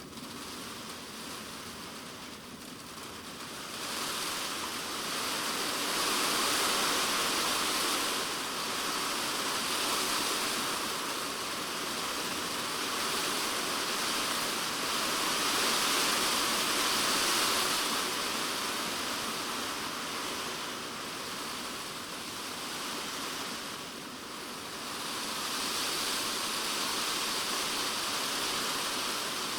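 Heavy typhoon rain falling on a polycarbonate shed roof, heard from inside the shed as a dense hiss. It grows heavier about four seconds in, then swells and eases in slow waves.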